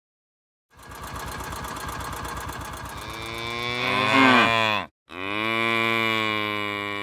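A small utility-vehicle engine putters with an even rapid pulse, then cattle moo: one moo that bends down in pitch and breaks off, then a second, longer moo.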